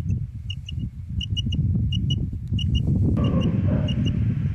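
Kirka quail caller sounding short, high quail-like pips in pairs and threes, imitating a female quail's call to draw in male quail. Wind rumbles heavily on the microphone underneath and is the loudest sound.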